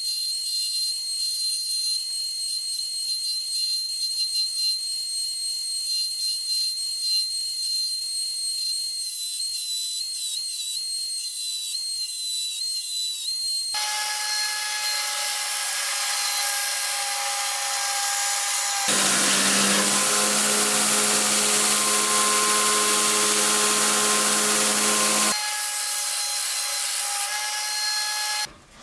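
Belt grinder running with a forged O1 tool steel blade held against the belt, grinding its profile: a steady high whine with a grinding hiss. The sound changes about halfway through and grows louder and deeper for several seconds before settling back.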